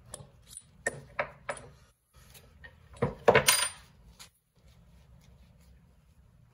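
Light metallic clinks and taps from the small parts of a RockShox Charger damper compression assembly and hand tools being handled at a bench vise. A few sharp clicks come in the first second and a half, then a louder, brief clatter a little after three seconds.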